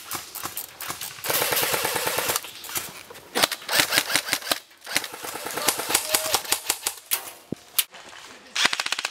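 Airsoft electric guns firing on full auto: a loud, dense burst about a second in, then scattered shots and shorter bursts, and another fast, even burst starting near the end.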